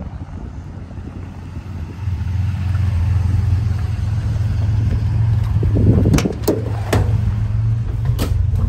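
1962 GMC panel truck's original 305 V6 running steadily, a low rumble that grows louder about two seconds in as the truck pulls up close. Several sharp knocks and clunks come near the end.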